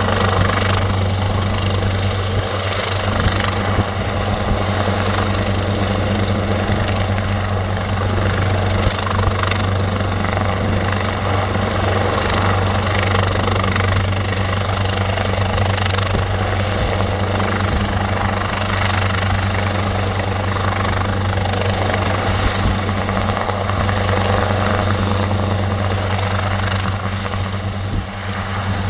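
Police helicopter's rotor and engine running steadily, a deep continuous throb with a thin steady high whine above it.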